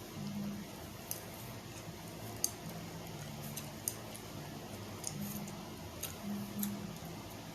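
Chewing gum being snapped and clicked in the mouth: short, sharp clicks at irregular intervals, about eight in all.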